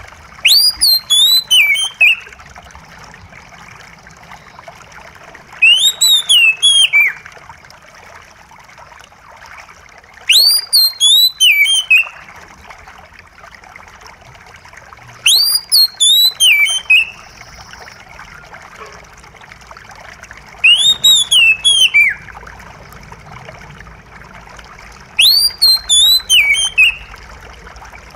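Oriental magpie-robin whistling the same short phrase of quick rising and falling notes six times, about every five seconds, over a steady trickle of running water.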